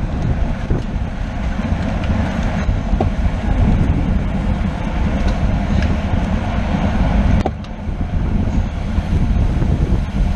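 Rushing wind buffeting the microphone of a camera riding along on a racing bicycle, mixed with tyre and road noise. It is loud and unsteady, and eases briefly about seven and a half seconds in.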